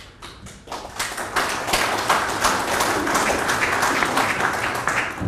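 Audience applauding: a few scattered claps that build into full, dense applause about a second in, thinning out near the end.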